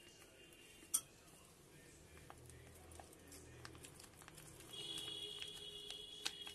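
Quiet handling of a plastic tamarind-paste sachet and a metal spoon over a glass bowl, with a sharp click about a second in and another near the end. From about five seconds a steady high-pitched tone with a faint low tone beneath it sounds for under two seconds.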